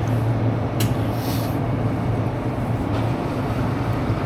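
Steady low mechanical hum over constant machine noise, with a brief faint hiss about a second in.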